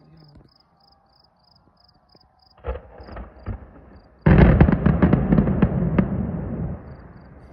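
Distant fireworks display: a few scattered bangs about two and a half seconds in, then a loud, rapid string of bangs and crackles from about four seconds in that tapers off near the end.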